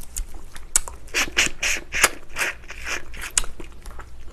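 Close-miked wet mouth sounds of sucking on and chewing soft, gelatinous spicy braised ox foot: an irregular run of short squelching, smacking sounds.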